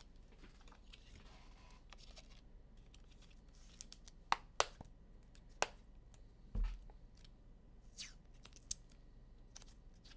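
Trading cards being handled between announcements: scattered short clicks and light scraping, with a soft thump about six and a half seconds in.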